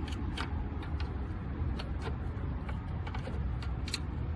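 A few light, scattered clicks of small metal parts being handled, over a steady low hum.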